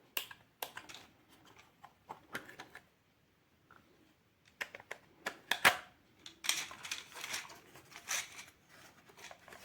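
Objects being handled at close range: irregular plastic clicks and taps, one sharp click about halfway, then a stretch of rustling, as of packaging being moved.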